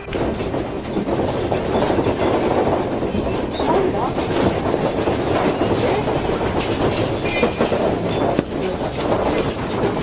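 A house shaking in an earthquake: a continuous loud rumble with objects and fittings rattling and clattering throughout.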